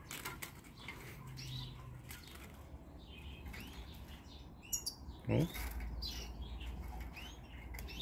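Wings fluttering inside a wooden-and-wire cage trap holding a European goldfinch, with a few sharp knocks against the cage. Small birds chirp in short rising-and-falling calls.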